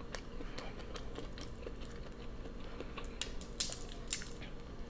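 Quiet chewing of boiled prawns, with scattered faint wet clicks and mouth smacks, a few sharper ones a little past the middle.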